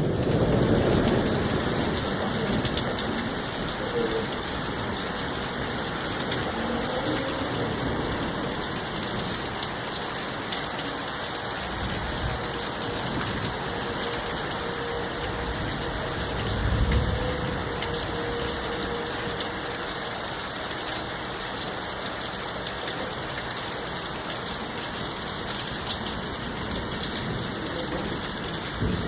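Steady rain pouring down. A low rumble of thunder fades out in the first couple of seconds, and a brief low rumble swells up a little past halfway.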